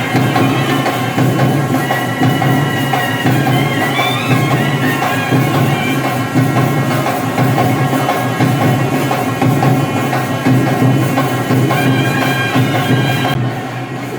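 Traditional music: a reedy wind instrument plays a wandering, gliding melody over a steady drone, with drums.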